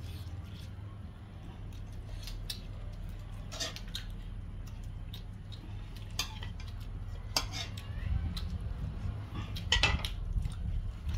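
Clinks, knocks and scrapes of a metal plate and dishes being handled as rice is dished out, irregular and scattered, with the loudest clatter near the end, over a steady low hum.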